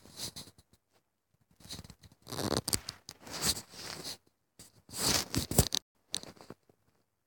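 Rustling, scraping noise in several bursts, the loudest about two to four seconds in and again around five seconds.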